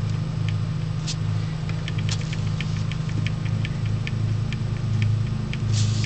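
A steady low hum with scattered, irregular light ticks. Near the end come a few louder rustling bursts as a hand comes close to the microphone.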